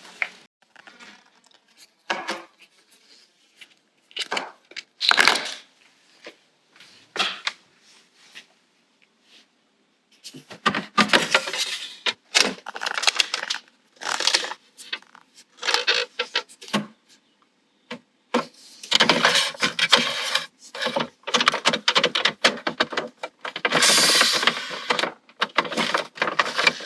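Hands handling plastic refrigerator water filter parts: scattered clicks, knocks and rustling, sparse at first and busier from about ten seconds in.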